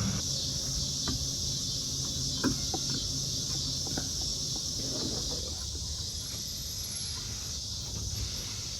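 Steady high-pitched insect chorus, with a few faint light clicks of small metal parts being handled.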